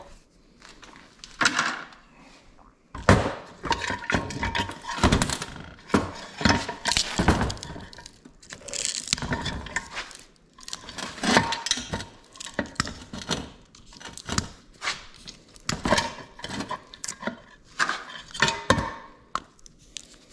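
Metal parts of an industrial light fixture clattering and clinking as it is taken apart by hand: irregular knocks and clinks, a short one about a second and a half in, then steady busy handling from about three seconds in until shortly before the end.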